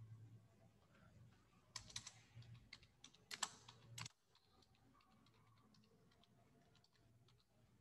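Faint computer keyboard typing: a short run of keystrokes between about two and four seconds in, followed by a few scattered light taps.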